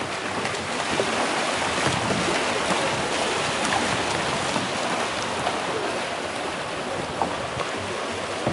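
Steady rush of fast-flowing river water, with scattered splashes and knocks of kayak paddles.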